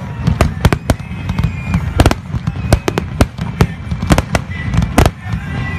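Fireworks going off in rapid succession: many sharp bangs and cracks, several a second and overlapping, over a steady low rumble of more distant bursts, with a few faint high tones.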